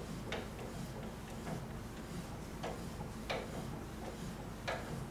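Girth wrench being worked back and forth like a ratchet on a waterjet pump's stainless high-pressure cylinder as it is unscrewed. There are about five light metallic clicks at irregular intervals.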